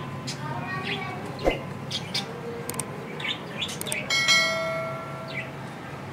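Small birds chirping in the background. About four seconds in, a bright bell chime, most likely the subscribe-button animation's sound effect, rings out and fades away over about a second.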